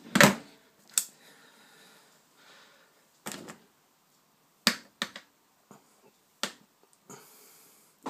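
A loud knock, then a scattered run of sharp clicks: the Indesit dishwasher being shut and its programme dial and buttons being worked to start a run.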